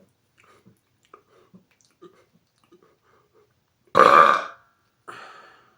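A man's forced, very loud burp about four seconds in, lasting under a second, followed a second later by a shorter, quieter sound. The burp measures 118.1 dB, just short of his 120 dB target.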